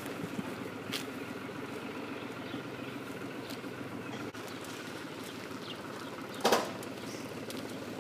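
A child's bicycle rolling over rough pavement, a steady low rumble of tyres on the ground, with a few faint clicks and one short, louder scrape about six and a half seconds in.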